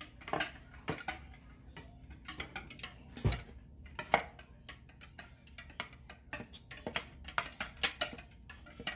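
A wire whisk beating eggs in a glass bowl, its wires clicking and tapping against the glass in quick, irregular strokes.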